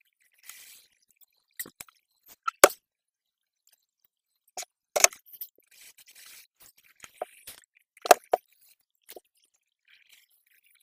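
Irregular sharp clicks and knocks, about a dozen, with a few short stretches of rustling. The loudest click comes about two and a half seconds in.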